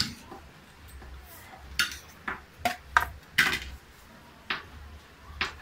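Dishes and cutlery clinking on a dinner table: a ceramic plate set down and utensils knocking against plates and a stainless steel pot, about eight separate sharp clinks, a few with a short ring.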